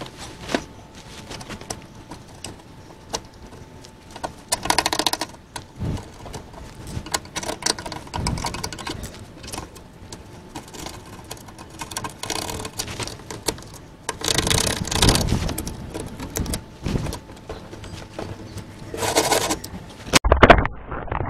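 A screwdriver scraping and clicking against the steel sill of a Ford Transit Mk7 van as its blocked drain holes are poked clear: irregular taps and scrapes with a few longer scraping spells. Loud knocks near the end as the camera is picked up.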